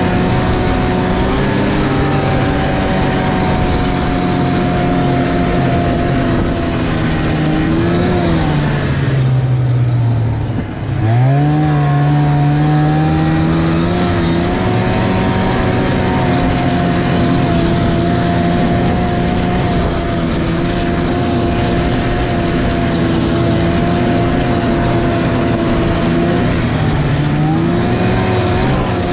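Snowmobile engine running steadily at speed. About eight seconds in, its pitch sags as the throttle eases off, then climbs quickly back up a few seconds later, with another short rise near the end.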